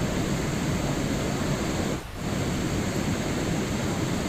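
Steady rain, a dense even hiss with no separate drops standing out. It dips briefly about two seconds in, like a seam in a looped recording.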